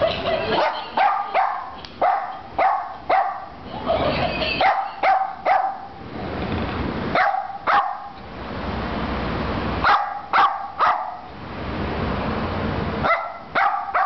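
Small dog barking at a plush monkey toy: runs of two to six short, sharp barks in quick succession, broken by pauses of a second or two.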